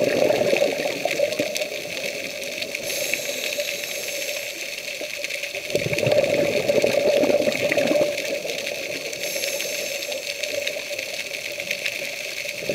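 Muffled underwater noise picked up inside a camera's waterproof housing: a steady rushing hum, with louder rushes of water at the start and again about six seconds in.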